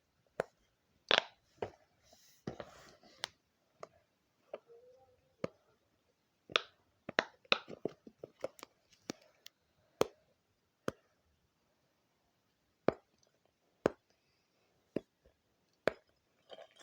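Fidget toys being clicked and popped by hand: irregular sharp clicks and small pops with quiet gaps between, coming quickly through the middle and sparser toward the end.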